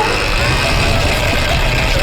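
Surron Ultra Bee electric dirt bike's TORP TM50 Pro motor whining under throttle, its pitch holding fairly steady and easing down slightly, over a low rumble.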